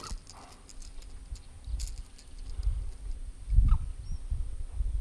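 Wind buffeting the microphone in low, gusty rumbles that grow stronger near the end, with a few faint scattered clicks and one short high chirp.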